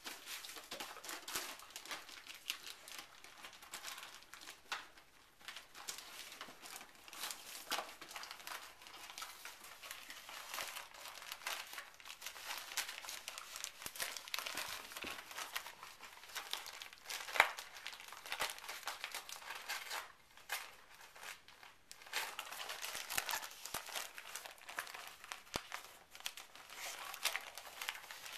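Gift-wrap paper crinkling and tearing irregularly as a dachshund tugs and chews at it. A single sharp click stands out about halfway through.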